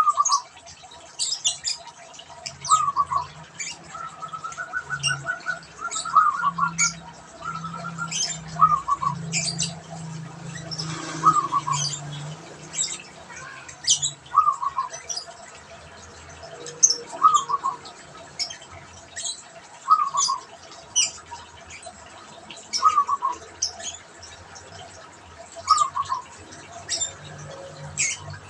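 Zebra dove (perkutut) cooing its rhythmic song: a short run of stepped notes falling in pitch, repeated about every three seconds. Sharp high chirps from other small birds sound between the phrases, over a low hum that fades out about halfway through.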